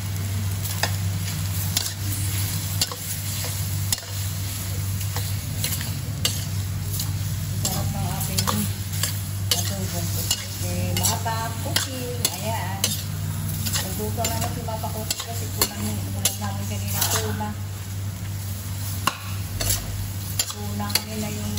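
Squid sizzling in a stainless steel pan while a metal utensil stirs it, scraping and clicking against the pan many times.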